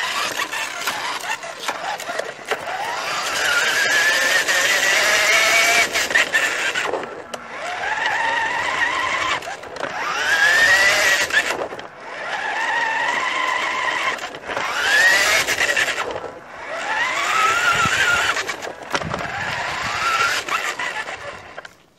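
Nikko RC tip truck's small electric drive motor and gearbox whining as the truck drives. The whine rises in pitch as it speeds up, then drops away, about seven times over.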